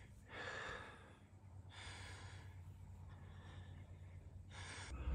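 A hiker breathing hard on a steep climb: three long breaths, about a second and a half apart, over a steady low rumble, with a thump at the very end.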